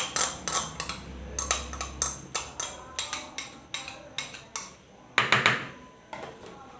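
A spoon clinking and scraping against a small glass bowl as garlic-ginger paste is knocked out of it, in quick repeated taps, about three or four a second, with a louder scrape a little after five seconds in.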